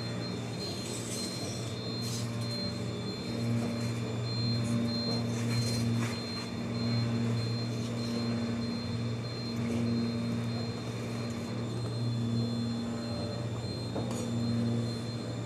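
Steady low hum of workshop machinery, swelling and easing unevenly, with a thin high whine over it. A few sharp clicks and scrapes break in as a rubber mat is cut and handled by hand.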